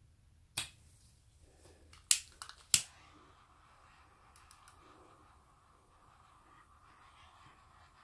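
Handheld gas torch being lit: several sharp clicks of its igniter, then from about three seconds in the flame burns with a faint steady hiss.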